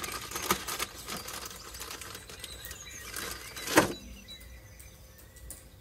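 Plastic food bag crinkling and rustling as it is torn open and handled, with one louder crackle about four seconds in, then quieter.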